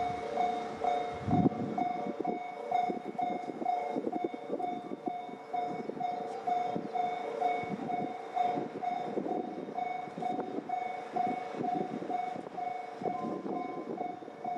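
Japanese level crossing's electronic warning bell ringing evenly about twice a second, over the rumble and clatter of a passing train.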